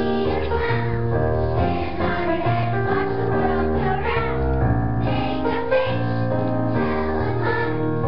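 Children's choir singing an upbeat song with instrumental accompaniment over a repeating bass line.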